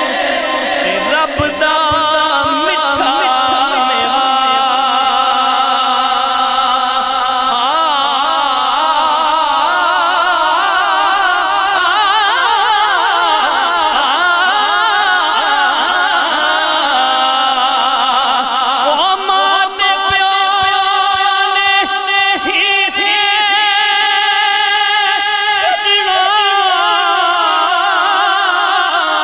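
A man sings a Punjabi devotional poem in praise of mothers, solo into a handheld microphone. He holds long notes that waver in pitch, and a new phrase begins about two-thirds of the way through.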